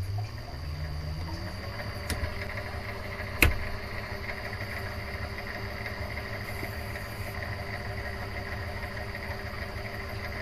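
Mini lathe motor spinning up with a rising whine over about a second and a half, then running steadily with the chuck turning. A sharp click about three and a half seconds in is the loudest sound, with a fainter one a little before it.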